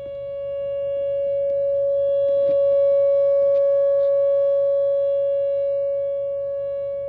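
Outdoor tornado warning siren sounding its steady alert tone at full speed for a drill test. The pitch holds steady while the loudness swells and then fades once as the rotating siren turns past.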